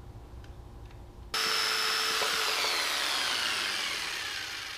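Corded electric jigsaw starting abruptly with a loud high whine. The whine holds steady briefly, then falls steadily in pitch and fades as the motor winds down.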